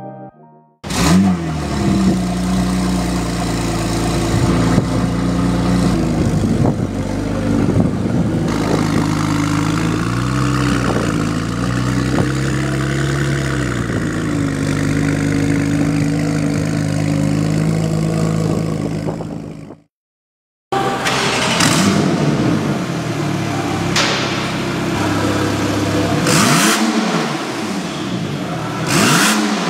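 Porsche 991.2 Turbo S twin-turbo flat-six running at a steady idle through its exhaust, the note wavering slightly a few times. After a brief break it idles again with the valvetronic exhaust valves closed and is blipped twice near the end, the pitch sweeping quickly each time.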